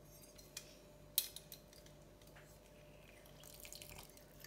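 Faint clicks of handling, the sharpest about a second in, then near the end a faint trickle and patter as juice is squeezed from half a lime into a pot of pigeon peas in coconut milk.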